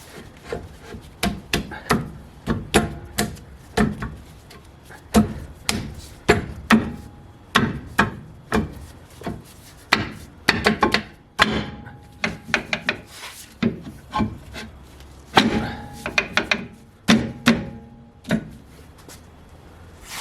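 Irregular metallic clicks and knocks as a rear wheel and its wheel nuts are refitted to a Toyota Hilux's rear axle hub; a few strikes ring briefly.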